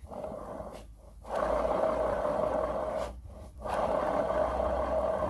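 Worn bearings of a Mercedes ML500 W164 rear differential grinding as the ring gear and carrier are turned by hand, in rough spells of one to two seconds with short pauses between: the sound of failed differential bearings.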